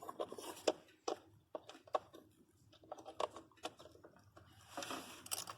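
Hands working a replacement ignition coil and its electrical connector into place on the engine: a scatter of small plastic clicks and knocks, with a brief rustle near the end.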